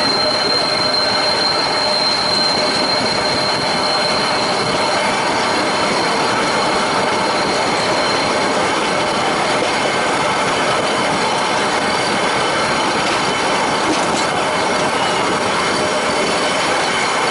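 Nilgiri Mountain Railway metre-gauge coaches rolling round a curve: a steady rumble and rattle of the wheels on the rails, with a high, thin wheel squeal over the first several seconds that fades away.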